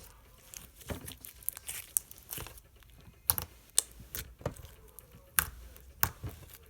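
Slime being squeezed and stretched by hand, making irregular sticky clicks and pops.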